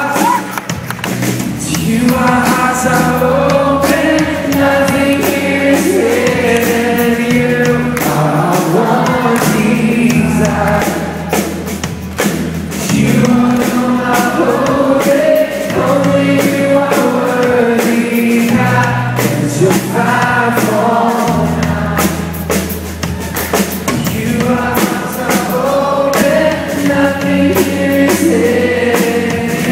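Live Christian rock band playing a song: a man sings lead over strummed acoustic guitar, electric bass and drums, loud and steady throughout.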